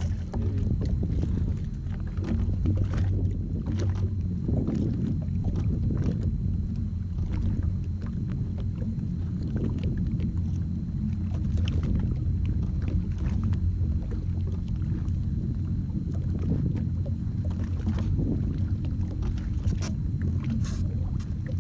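Steady low rumble of a Sea-Doo jet ski engine idling, with faint scattered ticks and taps over it.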